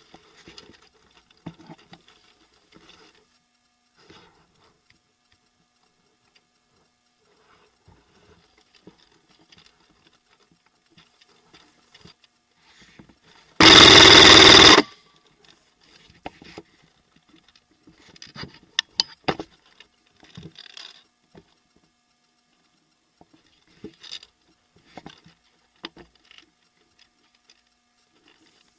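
Airsoft electric gun firing one full-auto burst of about a second, a dense rapid mechanical rattle at the mic, halfway through. Around it are only faint scattered clicks and rustles of movement and gear.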